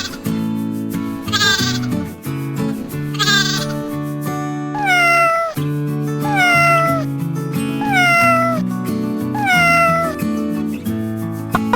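Background music with animal calls laid over it: a goat bleats three times, then a cat meows four times, about one and a half seconds apart, each meow falling in pitch.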